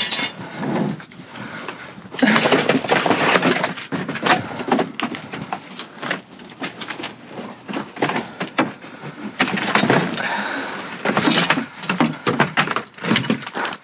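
Trash being rummaged through in a dumpster: irregular knocks and clatter of items being moved, with stretches of rustling and scraping.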